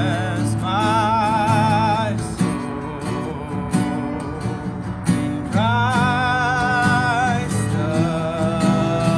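Worship song: strummed acoustic guitar under a sung melody of long held notes with vibrato.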